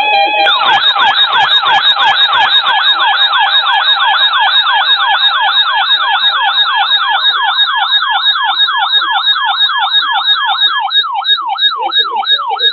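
An electronic siren: a steady tone switches about half a second in to a fast yelp sweeping up and down several times a second, which slows to a slower wail near the end.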